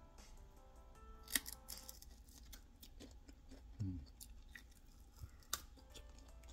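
Soft background music with the sounds of a grilled venison rib being bitten and chewed: a few sharp crunching clicks and wet mouth smacks, the loudest two about a second and a half in and near the end.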